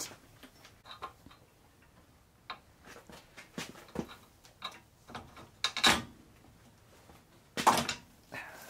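Scattered light clicks and taps of metal hardware and plastic parts being handled while fitting the fan shroud's mounting bolts and rubber washers by hand, with two louder knocks, one about six seconds in and one near the end.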